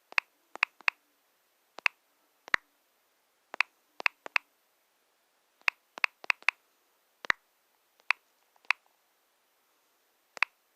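Small folding pocket knife, a Smith's Titania I, being worked open and closed by hand: a series of sharp clicks from the blade and its frame lock, irregularly spaced and some in quick pairs.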